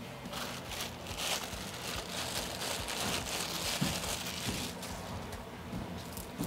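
Rustling and crinkling handling noise with a few light clicks as a new cam chain is picked up and worked over a Kawasaki jet ski engine block. The rustle runs for about four and a half seconds, then eases to a few scattered clicks.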